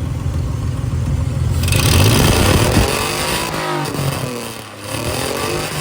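Nissan 300ZX (Z31) V6 engine running, revved up from idle about one and a half seconds in and settling back, then blipped again near the end.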